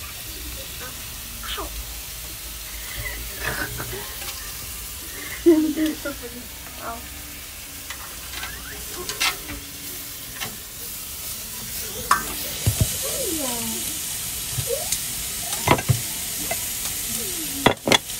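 Food sizzling on a barbecue grill: a steady hiss, with scattered sharp clicks and clinks throughout.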